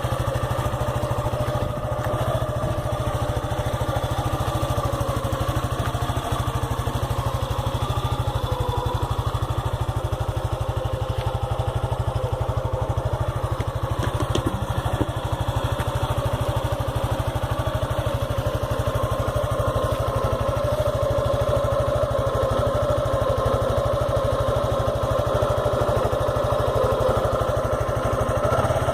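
Suzuki Gixxer SF 150 motorcycle's single-cylinder engine idling steadily.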